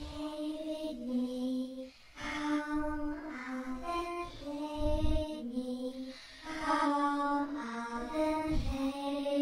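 A slow, lullaby-like song sung in a high female voice, a string of long held notes stepping up and down. A few low thumps sound beneath it, about five seconds in and again near the end.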